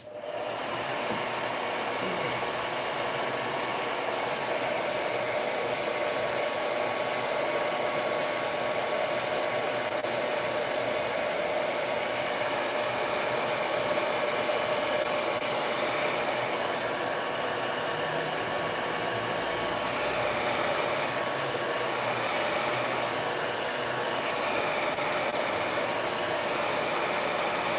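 Handheld hair dryer switched on right at the start and blowing steadily, drying fresh acrylic paint; a steady motor whine sits under the rush of air.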